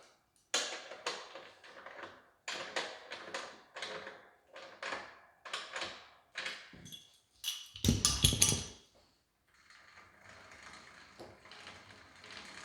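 Socket ratchet tightening the axle nuts of a Schwinn Airdyne air bike in a series of short ratcheting strokes, then a loud clunk. After that comes a faint steady whoosh of the bike's fan spinning with its chain freshly tensioned and quiet.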